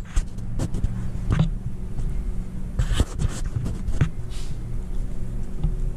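A steady low hum with irregular knocks and clicks scattered through it, about a dozen, with a small cluster around the middle.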